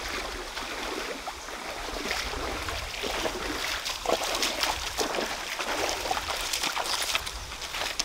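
Feet wading through a shallow stream, splashing with each step over the running water; the splashes get busier and louder about three seconds in.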